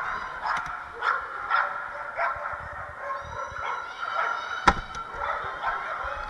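Dogs at a flyball race barking and yipping over and over, a call every half second or so, with one sharp knock about three-quarters of the way through.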